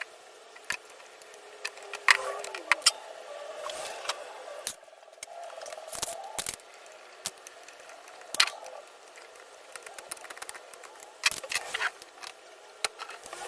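Irregular clicks, knocks and light rattles of small tools and plastic and metal parts being handled while a 1/5 scale RC truck is taken apart.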